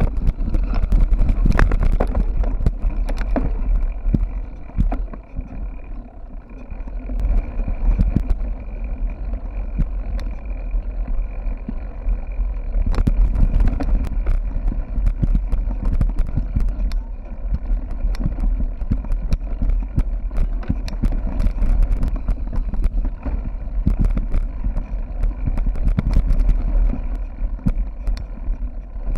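Mountain bike being ridden over rough trail, heard through a bike-mounted action camera: steady wind rumble on the microphone with frequent knocks and rattles from bumps in the ground.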